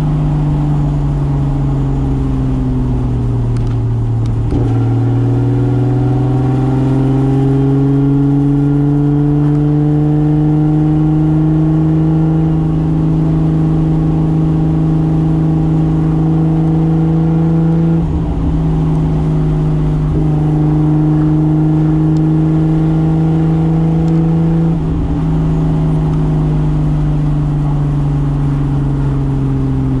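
Single-turbo Toyota 2JZ straight-six in a 1995 Soarer pulling under light load on the road. Its note climbs slowly for over ten seconds as the car gathers speed, with brief throttle lifts about two-thirds of the way through and again near the end.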